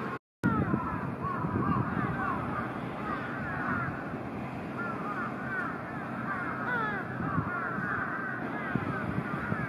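A crowd of crows calling, many short calls overlapping without a break, over a steady low rumble. The sound cuts out completely for a moment just after the start.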